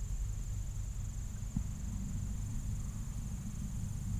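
Quiet outdoor background: a steady high-pitched insect drone over a low rumble, with one faint tick about one and a half seconds in.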